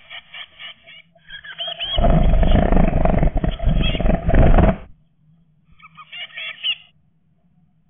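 Blue tit chicks calling inside a wooden nest box, then about two seconds in a loud flapping, scrabbling scuffle lasting nearly three seconds as a chick flutters up to the entrance hole to fledge, followed by a brief burst of high chick calls.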